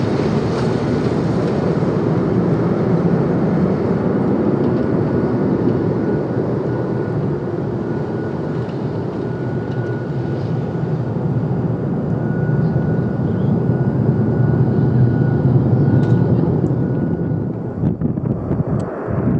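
Ilyushin Il-76TD's four D-30KP turbofan engines at takeoff power, a loud steady jet noise with a thin whine over it as the freighter rolls and climbs away. Near the end it gives way to gusty wind on the microphone.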